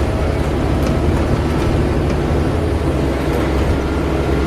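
Volvo Olympian double-decker bus running at a steady pace, its engine a loud low drone.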